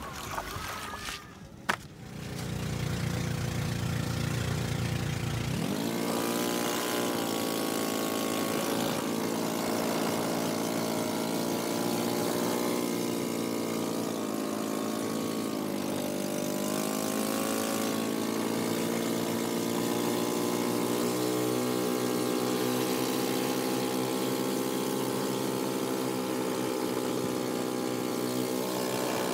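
Engine of a bangka outrigger boat running under way. About six seconds in, its note rises and then holds steady, dipping in pitch briefly a few times.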